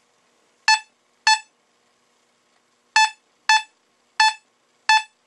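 Fisher F44 metal detector giving six short beeps at one steady pitch as a silver Mercury dime is passed over its coil, each beep the detector's signal of a high-conductivity target, which it reads as 69 in the dime range.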